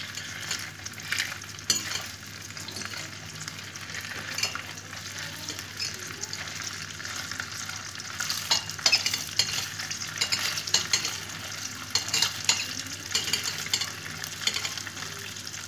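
Hot dog sausages frying in a little oil in a stainless steel pan: a steady sizzle and crackle. Sharp clicks and scrapes, more of them in the second half, come from the sausages being turned and pushed around the pan with a utensil.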